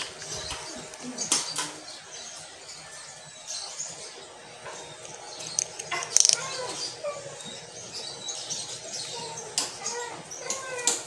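Close handling noise of a full-face motorcycle helmet being pulled on and its chin strap fastened: rustling against the microphone with several sharp clicks. Short chirping calls come in during the second half.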